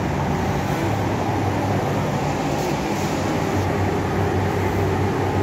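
Spray booth ventilation running: a steady low hum with a constant rush of air.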